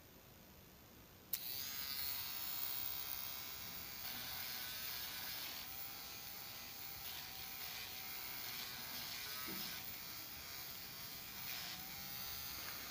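Battery-powered lipstick-shaped mini hair remover switched on about a second in, then a steady high buzzing whine of its small motor as it is run over forearm hair, the pitch wavering slightly now and then.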